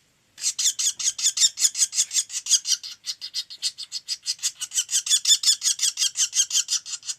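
Woodpecker giving a rapid, high-pitched chattering call, a long run of short notes at about eight a second that starts after a half-second pause.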